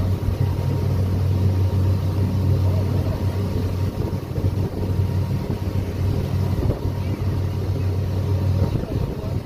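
Passenger ferry's engine running steadily at cruising speed, a constant low drone with an even rushing noise above it.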